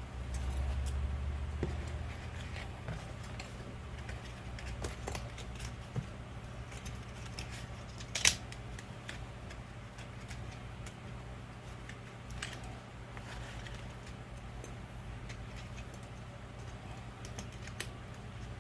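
Scattered light metallic clinks and taps of tools and parts being handled while fitting a CV axle boot, with one sharper clack about eight seconds in, over a steady low hum.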